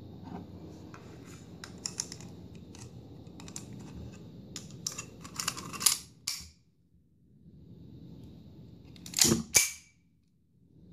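Small metallic clicks as 9 mm P.A.K. blank cartridges are pressed one by one into the steel magazine of a Bruni New Police blank pistol. Near the end come two loud metallic clacks about half a second apart: the slide is pulled back and let go, chambering a blank and cocking the pistol.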